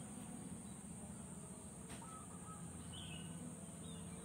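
Faint background sound: a steady high-pitched drone under a low hum, with a small click about two seconds in and a faint chirp about three seconds in.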